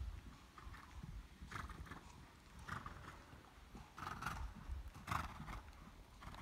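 Horse trotting under a rider on a sand arena: faint, muffled hoofbeats, with a short, louder sound about once a second.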